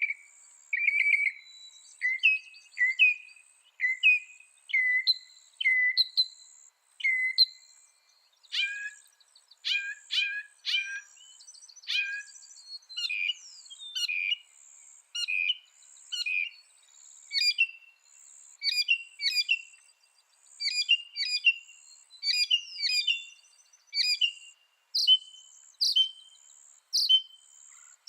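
Mockingbird singing a long run of varied phrases, each repeated two to four times before switching to a new one: buzzy notes first, sharp downward-sweeping notes in the middle, and repeated clear whistles near the end.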